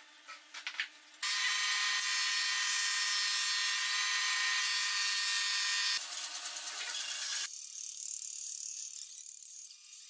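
Pencil scratching on wood, then a power tool starts suddenly about a second in with a loud, steady high whine. After about six seconds a band saw runs with a quieter, steadier hum and hiss as a pallet board is fed toward the blade.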